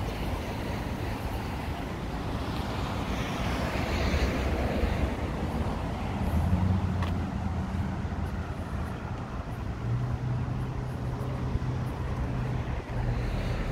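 Street traffic: cars passing close by, one swelling and fading about four seconds in, with a low engine hum from vehicles in the middle and later part.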